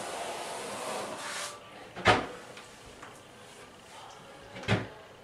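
Rubber grout float scraping grout across porcelain wall-tile joints for about a second and a half, then two sharp knocks about two and a half seconds apart, the first the louder.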